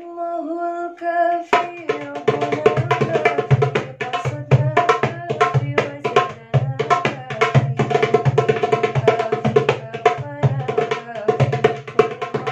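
An Alexandria darbuka (Egyptian goblet drum) played by hand in a quick rhythm of deep centre strokes and sharp rim strokes, joined by singing. The voice sings alone at first, and the drum comes in about a second and a half in.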